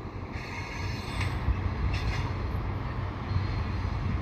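Railpower RP20BD genset switcher's diesel engines running as it pulls a string of double-stack container cars, a steady low hum. A faint high squeal comes and goes over the first couple of seconds.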